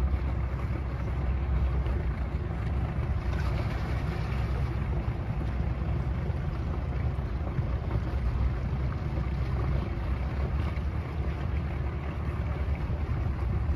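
A motor yacht's inboard engines running steadily at low speed as the boat manoeuvres, with some wind on the microphone.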